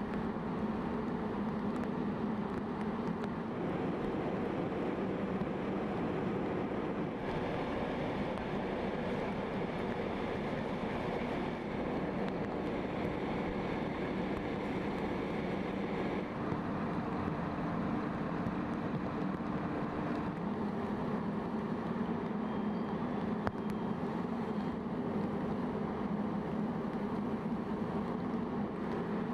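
Fireground ambience: a steady engine drone from fire apparatus running, under the rush of a house burning.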